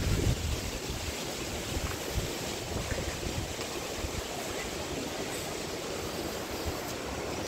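Steady rush of a glacier-fed mountain stream, with wind rumbling on the microphone, strongest at the start.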